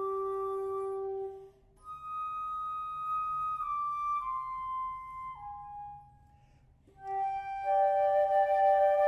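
Trio of concert flutes playing long held notes in harmony, in phrases broken by two short rests, about a second and a half in and again around six seconds; near the end all three come back in louder and fuller.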